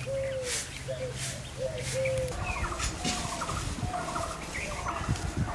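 Village chickens and other birds calling over and over, short arched calls at first, then busier clucking and chirping from about two seconds in. A few soft swishes of a straw broom on packed earth in the first seconds.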